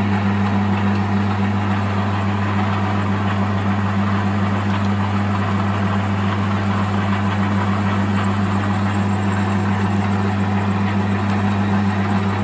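Metal lathe running with a steady hum while a 6.5 mm twist drill, fed from the tailstock drill chuck, bores into the turning workpiece.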